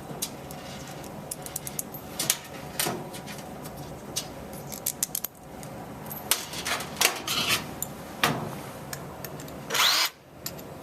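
Screws and washers being handled and set against a wall-mounted dispenser, with many irregular clicks and knocks, then a short run of a cordless drill driving a mounting screw near the end.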